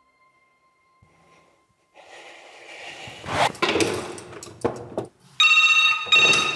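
Rustling and clattering as a visiting-booth telephone handset is grabbed and lifted, with a sharp knock about a second and a half in. Near the end comes a loud electronic ringing tone in two short bursts close together.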